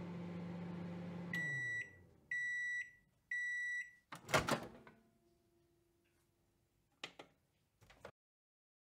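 Microwave oven finishing its cycle: the running hum winds down about a second in, followed by three high beeps. A loud clunk comes just after the beeps, then two faint clicks near the end.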